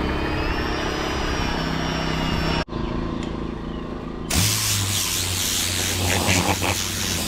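Electric power tool motor running with a steady low hum and a high whine that drifts up in pitch. It changes abruptly across short clips, and in the last three seconds a loud, even hiss sits over the hum.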